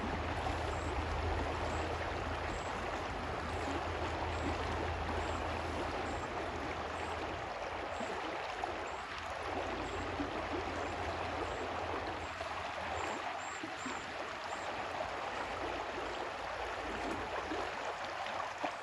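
River water rushing steadily over rocks in shallow riffles, with a low rumble underneath that drops away about two-thirds of the way through.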